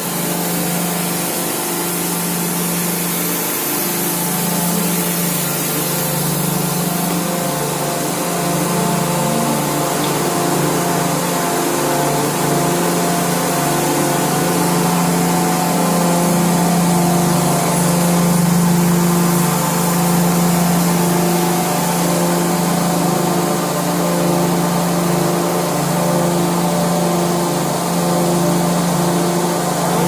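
Blast furnace taphole machine running in the cast house. It is a loud, steady mechanical drone with a constant hum and a higher note that pulses on and off about every second and a half, over a steady hiss.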